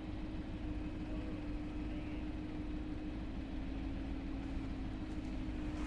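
Steady low mechanical hum holding one constant pitch over a low rumble of city street noise.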